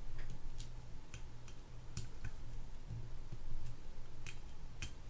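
A handful of light, scattered clicks from a screwdriver turning the small screws that secure the bearings in a Penn Spinfisher VI 7500 spinning reel, snugging them down.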